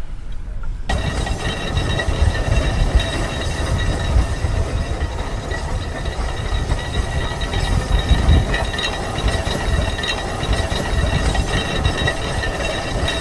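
Case 150 steam traction engine working under load, pulling a large gang plow: a heavy low rumble and mechanical clatter with a steady high whine over it. The sound comes in abruptly about a second in.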